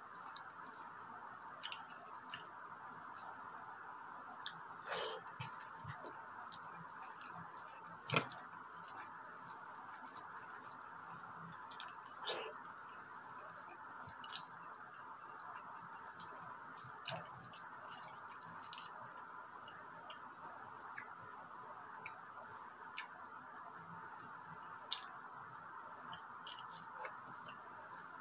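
Close-up eating sounds of a person eating rice and stewed meat by hand: wet, scattered mouth smacks and clicks of chewing, and fingers squishing through sauced rice, over a steady background hiss.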